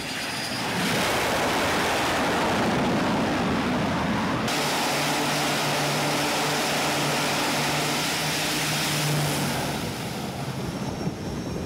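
Aircraft noise on a carrier flight deck: steady jet noise as an F/A-18 comes in over the deck, then, after a cut about four and a half seconds in, an E-2 Hawkeye's turboprop engines running with a steady low propeller hum, which drops away near the end.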